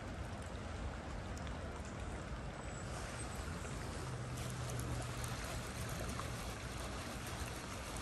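Steady wash of river water, with rain ticking faintly on the surface and a brief low hum about halfway through.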